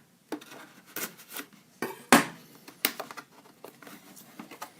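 Hands handling and opening a hockey card box and its tin: a series of sharp knocks, clicks and scrapes with rustling between them, the loudest knock about two seconds in.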